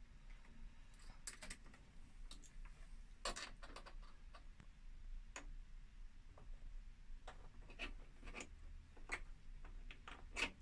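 Faint, irregular clicks and scrapes of metal pliers working at a deep-recessed screw in a plastic radio-cassette casing, a makeshift try at turning the screw without the proper long screwdriver.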